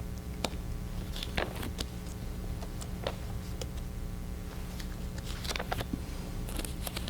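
Scattered soft rustles and clicks of a book's pages being handled while a scripture passage is looked up, over a steady low electrical hum.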